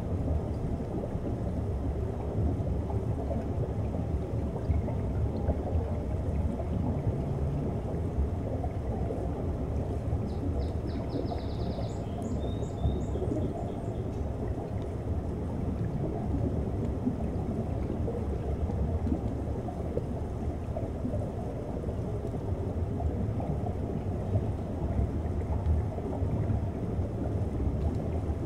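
Underwater ambient sea noise: a steady low rumble with a crackly texture. About ten seconds in there is a short run of rapid high-pitched clicks, followed by a brief high tone.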